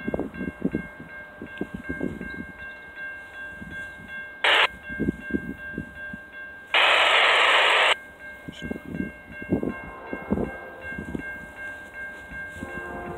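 Railroad crossing signal bells ringing in a steady rhythm, with irregular low rumbling and buffeting underneath. A short loud blast of noise comes about four and a half seconds in and a longer one of about a second near the middle.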